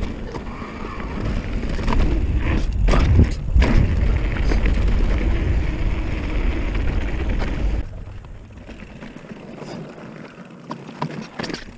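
Mountain bike being ridden fast on a dirt trail: a steady low rush of wind on the handlebar camera's microphone over the tyres rolling, with a few knocks from the bike hitting bumps. About eight seconds in the rush drops away suddenly to quieter rolling with scattered clicks.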